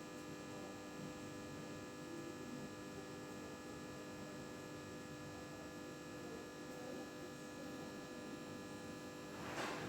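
Old desktop computer running with a steady electrical hum made of several held tones. A short scratchy noise breaks in near the end.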